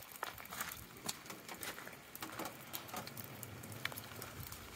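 Light rain: faint, scattered drops ticking and pattering at an irregular pace.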